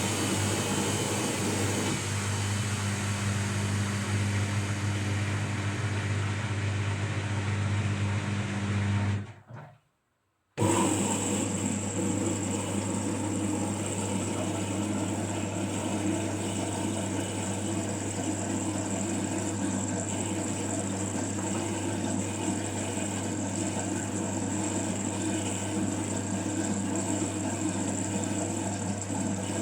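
Washing machine running: a steady motor hum with a low drone and a faint high whine. About nine seconds in the sound cuts out completely for about a second, then the machine carries on running.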